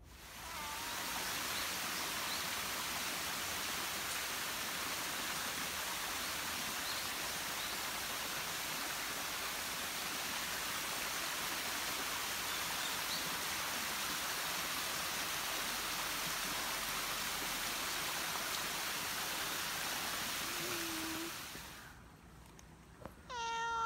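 A steady, even rushing hiss fades in at the start and fades out about 21 seconds in. Near the end a cat meows once, a held call that runs past the end.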